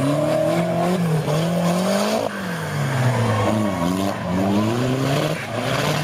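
Off-road 4x4 engines revving hard through a river crossing, the engine note rising and falling again and again as the throttle is worked, over the hiss and spray of water thrown up by the wheels.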